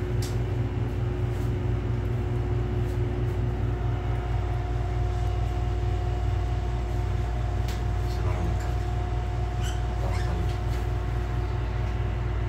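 Steady low mechanical hum with a constant tone running through it, and a few faint, short, high clicks or chirps scattered across it.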